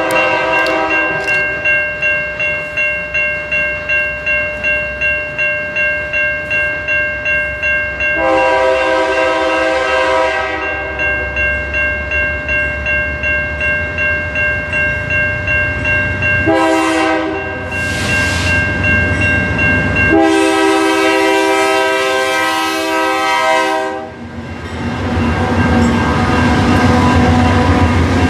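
A diesel locomotive's multi-chime air horn sounding a grade-crossing sequence: long blasts, a short one, then a long blast held as the train nears. Under it the crossing bell rings steadily about twice a second. Near the end the locomotive passes close by, its diesel engine rumbling and wheels rolling.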